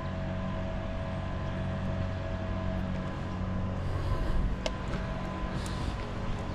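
Steady low hum of a running engine, with a couple of faint clicks near the end.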